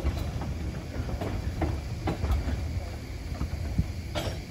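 Narrow-gauge Fowler steam locomotive and its train running past close by: a low rumble with irregular clanks and knocks of running gear and wagons.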